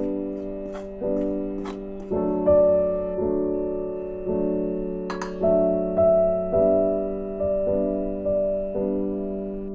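Background music on piano or electric keyboard: a gentle tune of struck notes, each fading away, with light ticks near the start and one sharp click about halfway through.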